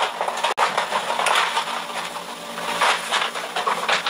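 Plastic packaging rustling and crinkling steadily as plastic-wrapped goods are handled and packed into a cardboard box.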